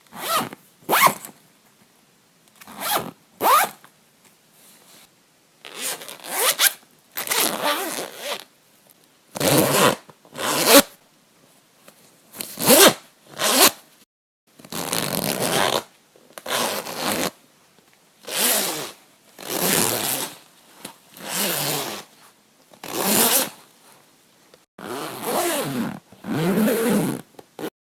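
A clothing zipper pulled open and shut about twenty times, each pull a separate rasping stroke; the early pulls are short and quick, the later ones slower and longer, about a second each.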